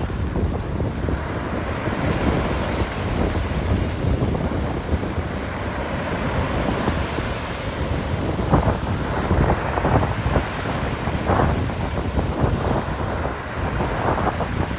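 Strong wind buffeting the microphone over choppy waves breaking, a continuous rough rumble with a few louder rushes about halfway through and near the end.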